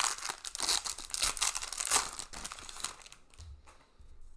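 Foil wrapper of a baseball-card pack crinkling and tearing as it is handled and opened. Dense crackling that dies away about three seconds in.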